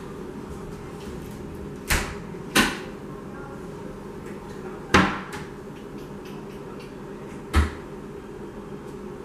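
Four sharp knocks of kitchen cupboard doors being shut, two close together and then two more spaced a few seconds apart, over a steady background hum.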